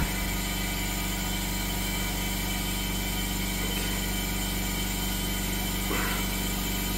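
Steady hum with an even hiss over it, from the compressed air supply that is holding the valve shut from inside the cylinder while the valve spring is compressed.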